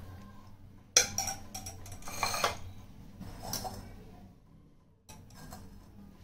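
Stainless steel kitchenware clattering: a sharp knock about a second in, then short bunches of metal clinks and rattles, as a steel mixer-grinder jar and a perforated steel strainer are handled.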